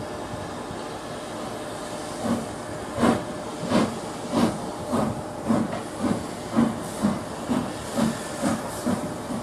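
S&DJR 7F 2-8-0 steam locomotive 53808 starting away with a train: steam hissing from its cylinders, then from about two seconds in a steady series of exhaust chuffs that quicken as it gathers speed.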